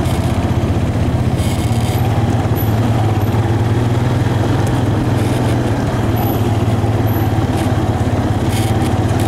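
Four-wheeler ATV engine running steadily under way on a dirt trail, heard from the seat, a constant low drone.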